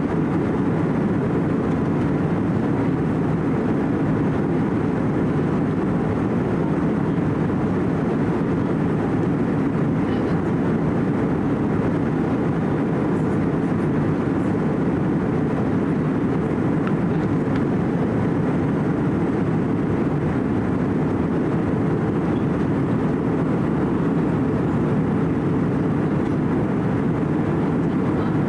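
Steady jet cabin noise inside an Airbus A320-200 in flight: a constant low rushing hum of engines and airflow, unchanging throughout.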